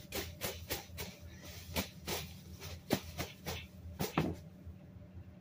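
Handling noise from plush toys being shaken and knocked together close to a phone's microphone: a quick run of soft knocks and rustles, about three a second, that stops about four seconds in.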